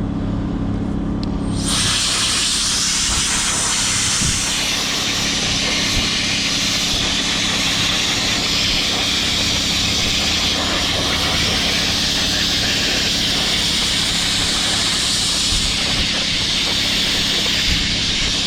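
A steady pressurised jet hissing into the corroded relay sockets of the fuse box. It starts about two seconds in and cuts off suddenly near the end, over a low steady hum.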